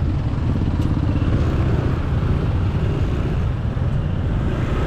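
Motorcycle running at low speed through heavy road traffic: a steady low rumble of engines and road noise with no sudden events.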